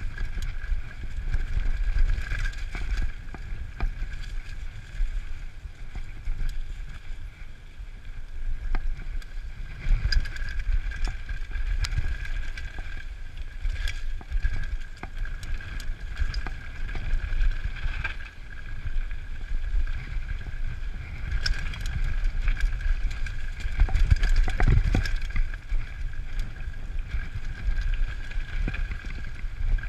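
Mountain bike coasting down a rough, rocky dirt trail: scattered rattles and knocks from the bike over the bumps, with wind rumble on the camera microphone and a steady high hum underneath.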